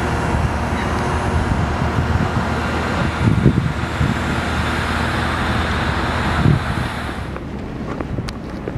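Steady outdoor rumble with wind buffeting the microphone, gusting about three and a half and six and a half seconds in; the hiss thins out near the end.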